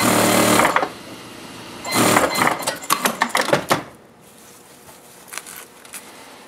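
Industrial sewing machine running a short burst of stitching that stops within the first second. Then, about two seconds in, the cloth rustles and scrapes irregularly for a couple of seconds as it is pulled and shifted across the machine table.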